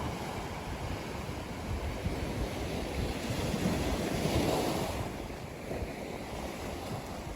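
Ocean surf washing on a beach, one wave swelling and breaking louder about halfway through, then easing back.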